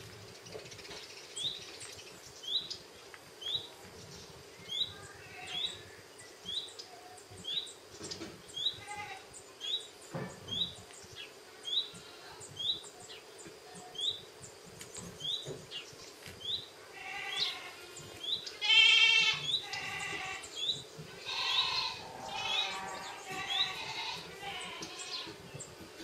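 Animal calls: a bird's short rising chirp repeated about every three-quarters of a second. About two-thirds of the way in, louder, longer cries with several stacked pitches join in, the loudest a little before the three-quarter mark.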